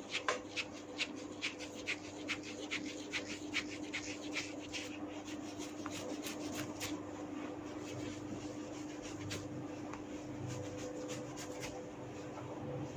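Hair cracking (jetut rambut): tufts of hair pulled sharply at the roots, giving a run of small dry snaps and clicks. They come thick and fast for the first several seconds, then more sparsely.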